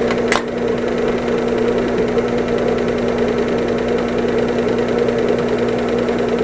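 Sewing machine running steadily while stitching, with a short click about half a second in.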